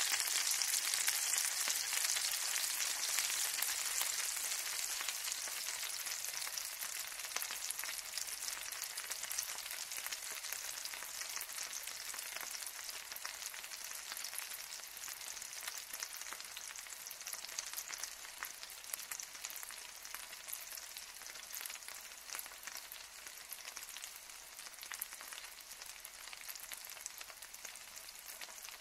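Food frying in hot oil: a steady sizzle thick with small crackles and pops, slowly growing quieter.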